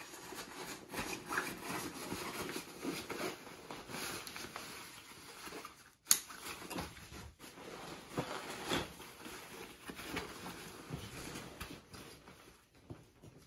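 The nylon fabric of an Exo Mountain Gear K3 6400 backpack rustles and rubs as it is stuffed and handled, with many short scratchy strokes. One sharp click about six seconds in is the loudest sound.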